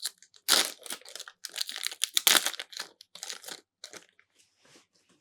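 Foil trading-card booster pack wrapper being torn open and crinkled by hand, a dense irregular crackling that dies away about four seconds in.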